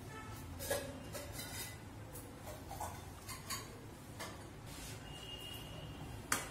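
Scattered light clicks and taps of a steel ladle against a steel wok as fried fish heads go into simmering dal, with a sharper clink near the end.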